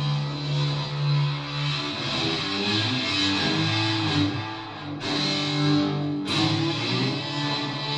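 Cello music: a bowed cello played over layered, looped cello parts, several sustained notes sounding together.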